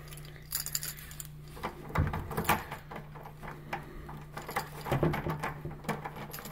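Keys jangling on a ring and clicking and scraping in a brass deadbolt lock as the door is unlocked: a run of sharp metal clicks and rattles.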